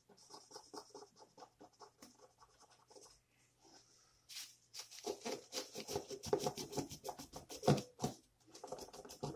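Felt-tip dry erase marker scratching in quick, short strokes over the body of a die-cast toy car, inking over the printed deco so it will lift off. About four seconds in it gives way to louder rubbing and crinkling of a tissue wiping the ink off the car.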